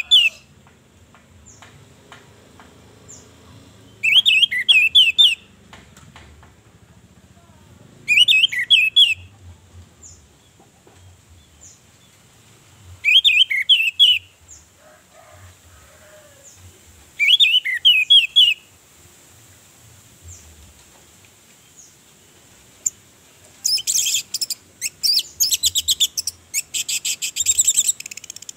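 Orange-headed thrush singing: short, loud, high phrases of quick notes repeated every four to five seconds, then, near the end, a long run of rapid chattering notes.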